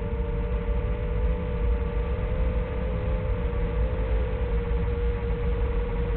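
Motors of a small 1S FPV quadcopter droning at a steady pitch that wavers slightly, over heavy low wind rumble.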